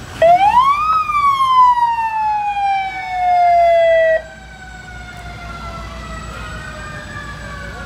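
Fire truck siren sounding one wail: the tone climbs quickly, then slowly falls and cuts off abruptly about four seconds in. A fainter second siren rises and falls near the end, over the low rumble of passing trucks.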